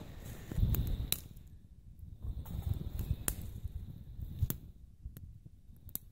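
Wood fire in a Bushbox XL hobo stove, giving scattered sharp cracks and pops every second or so. A dull low bump comes just before a second in.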